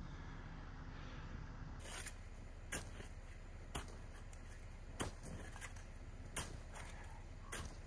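A snow shovel digging into packed snow on a trail, faint, with about six separate scrapes and strikes at irregular intervals roughly a second apart, starting about two seconds in.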